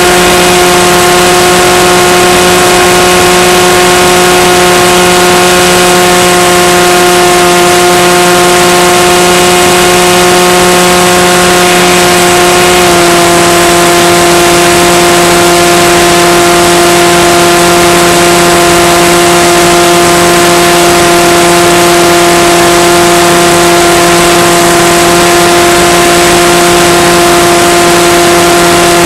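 Electric motor and propeller of a Skywalker FPV plane heard through the onboard camera's audio: a steady droning tone over a constant hiss. The pitch steps slightly lower about 13 seconds in as the motor current falls and the throttle eases.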